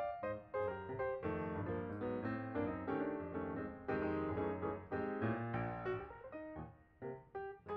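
Background piano music: a quick run of struck notes, with a short lull near the end.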